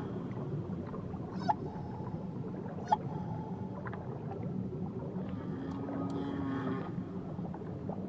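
Whale song over a steady low rush of water: two sharp pops in the first three seconds, each trailed by a short tone, then one long low call of steady pitch a little past the middle.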